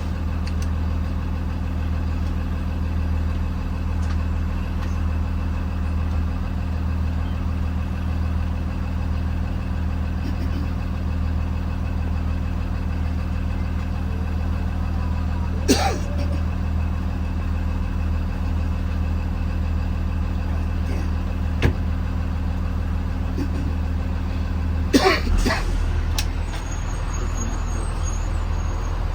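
Engine of a Blue Bird Vision school bus running at a steady, unchanging pitch, heard from inside the bus. A couple of sharp clicks come in the middle, and near the end there is a short burst of noise lasting about a second.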